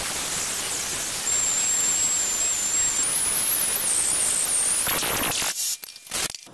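Pneumatic die grinder running at high speed in the exhaust port of a VW 1.8T 20-valve aluminium cylinder head, porting the port: a steady air hiss with a high whine that drops in pitch about three seconds in and wavers. It stops about five and a half seconds in.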